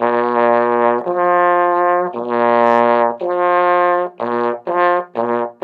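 Trombone playing a lip slur: sustained notes going up and down between a low note and a higher one with the slide held in place, the pitch changed only by the speed of the lip buzz. The first notes last about a second each, and the notes get shorter and quicker toward the end.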